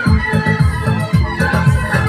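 Loud music with a fast, heavy bass beat, about three or four thumps a second.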